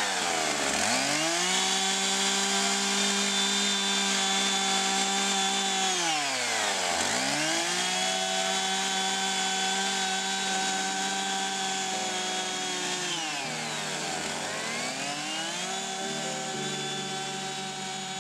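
Electric power tool motor running at a steady pitch, spinning down almost to a stop and straight back up three times, about every six to seven seconds, while gouging long grooves into a painted board.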